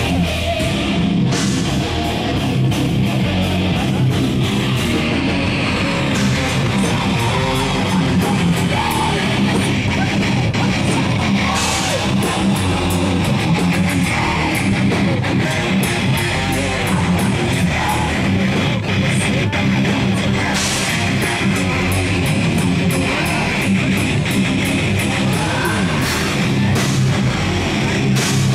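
A heavy metal band playing live: distorted electric guitars and bass over fast, continuous drumming.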